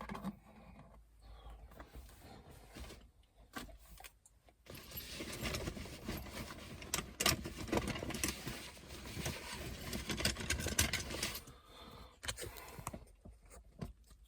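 A Torx screw being taken out of the A-pillar trim: scattered clicks and knocks, then a denser stretch of rattling and clicking of tool and plastic trim from about five seconds in to about eleven seconds.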